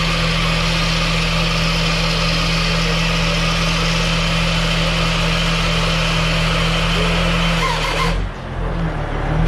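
An engine running steadily at an even, unchanging speed; the sound breaks off abruptly about eight seconds in.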